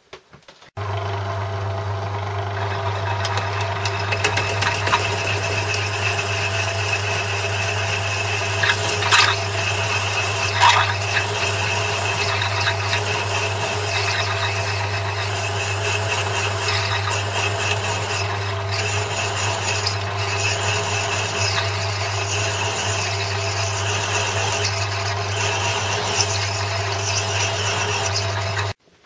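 Metal lathe running, with a twist drill cutting into a tool-steel workpiece held in a milling slide. There is a steady motor and drive hum under a scratchy, rasping cutting noise, with two louder scrapes near the middle. The sound starts and stops abruptly.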